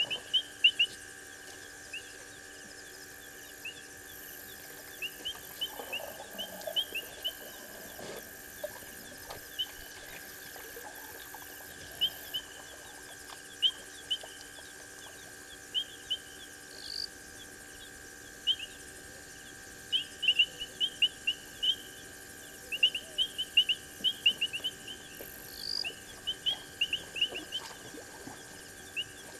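Night chorus of short, high chirping calls coming in quick bursts through the whole stretch, over a steady high-pitched hum.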